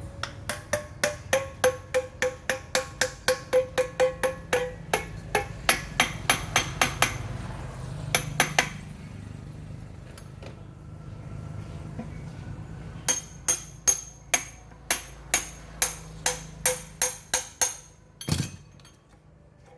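Hammer striking metal in a steady run of ringing blows, about three a second, typical of tapping a pump motor's parts such as a bearing into place. There is a pause, then a second run of blows, ending with one duller, heavier knock near the end.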